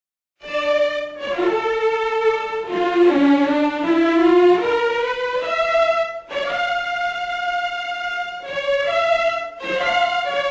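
Orchestral music led by violins, sustained notes in a melody that starts about half a second in, with brief breaks about six and nine and a half seconds in.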